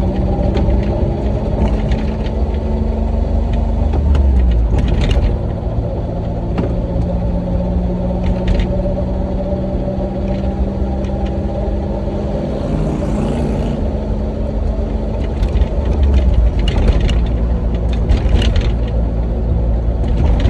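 Honda Beat's small three-cylinder engine and manual transmission running with a steady low rumble, the engine note shifting a few times, with scattered short clicks and rattles. This is the abnormal transmission noise the owner reports, which sounds even though the gears still engage normally.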